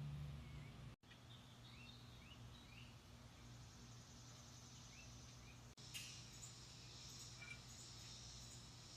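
Faint birds chirping: scattered short rising notes over a steady low hum, with a faint high shimmer joining about six seconds in. The sound cuts out for an instant twice, about a second in and just before six seconds.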